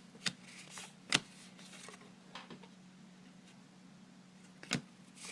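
Baseball trading cards being handled and flipped through, giving a few quiet, sharp clicks of card against card, the loudest about a second in.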